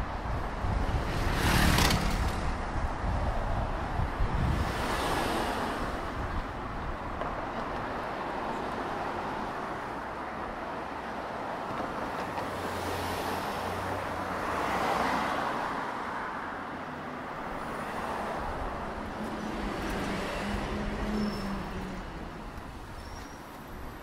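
Road traffic on a city street: cars passing one after another over a steady hum of traffic, the loudest pass about two seconds in.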